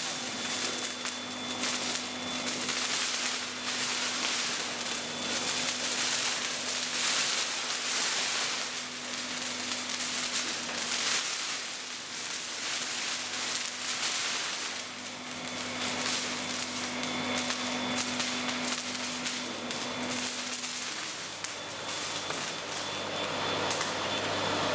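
Magnesium melting in an induction crucible furnace: continuous hissing and crackling from the melt, with many small sharp crackles, over a steady low hum.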